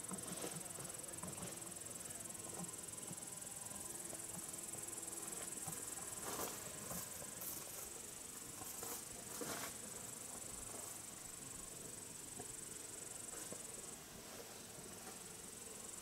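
Insects stridulating in meadow grass: a steady, high-pitched continuous trill that thins out briefly near the end. A few short, louder rushing sounds come through around the middle.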